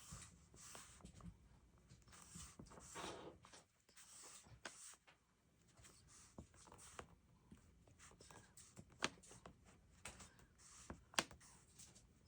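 Quiet handwriting in a paper planner: soft scratching strokes of a pen on paper with light paper handling, and a few sharp clicks or taps, the loudest about nine and eleven seconds in.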